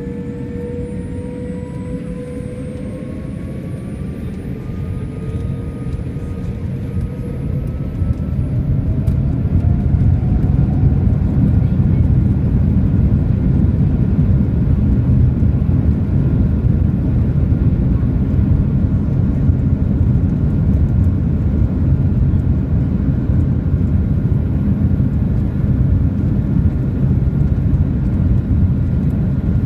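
Boeing 787 Dreamliner's Rolls-Royce Trent 1000 engines heard from the cabin, spooling up to takeoff thrust with a rising whine over the first several seconds. Then a loud, steady rumble of the takeoff roll under full power, with a high whine held above it.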